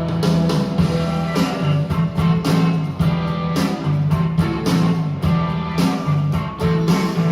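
Rock song playing from a vinyl record: an instrumental stretch with guitar over a steady beat, no singing.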